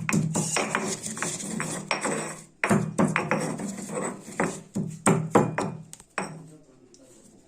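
Black pepper and ginger being pounded with a pestle: a run of sharp knocks, about two a second, stopping after about six seconds.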